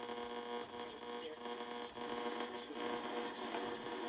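Eddystone S750 communications receiver's loudspeaker putting out a steady buzzing hum over background hiss, with a few faint crackles, while tuned across the short-wave bands with little signal coming in on a short wire antenna.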